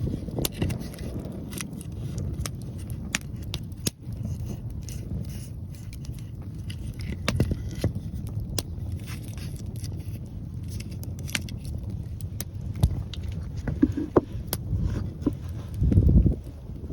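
Wood fire crackling, with scattered sharp pops, over wind buffeting the microphone; a stronger gust near the end.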